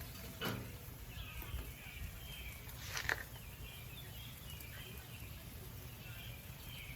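Outdoor ambience with birds chirping faintly over a low steady hum, and two light clicks, about half a second and three seconds in.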